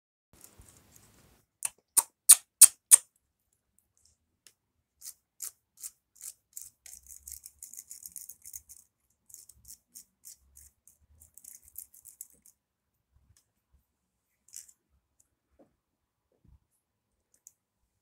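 Hand-handling noises: five sharp clicks about three a second, then a long run of softer, quicker clicks and scratches as a hairbrush and small plastic hair-dryer parts are fiddled with. The hair dryer is not running.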